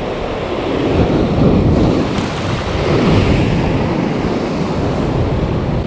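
Heavy ocean surf surging and breaking against a rock ledge, a dense rushing wash that swells a couple of times, with wind buffeting the microphone.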